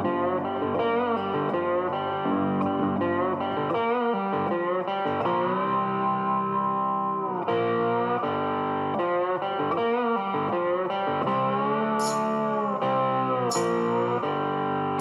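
Background music led by a guitar, with long held notes that bend in pitch.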